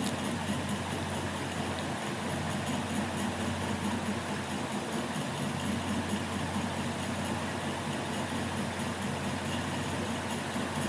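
Steady low hum with an even hiss, unchanging throughout, with no distinct knocks or strokes.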